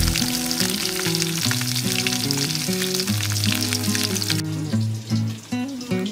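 Fish pieces sizzling and crackling as they fry in hot oil, over background music with a stepping melody. The sizzle stops about two-thirds of the way through, leaving only the music.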